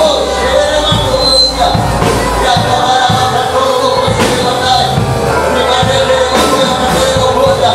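Live worship music with a steady beat, a man and a congregation singing along.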